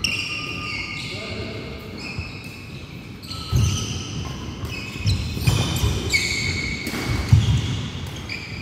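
Badminton doubles rally in a large hall with a wooden floor. Shoes squeak sharply and often on the boards, and feet thud as the players lunge and land, loudest in the second half. Rackets crack now and then against a nylon shuttlecock.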